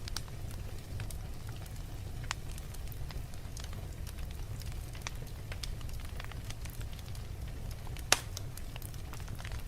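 Wood fire burning in a fireplace: scattered crackles over a steady low rumble, with one loud pop about eight seconds in.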